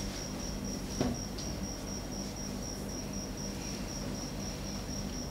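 A cricket trilling steadily in the background as a continuous high-pitched tone, with a soft thump about a second in.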